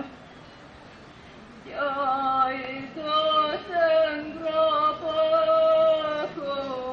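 A voice singing a slow melody of long held notes, coming in about two seconds in after a short pause.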